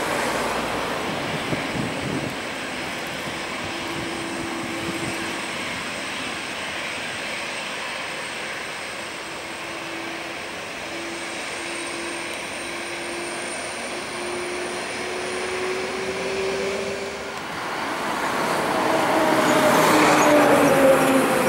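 Airbus A321-211's CFM56 jet engines running at taxi power: a steady whine with a faint tone that slowly rises in pitch. Near the end it grows louder and its pitch falls as the aircraft passes close.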